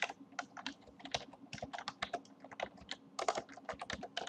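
Typing on a computer keyboard: quick, irregular keystrokes, several a second, as a file name is entered in a save dialog.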